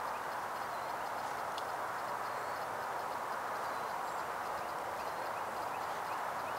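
Steady outdoor background noise with faint, high bird chirps repeating every second or so.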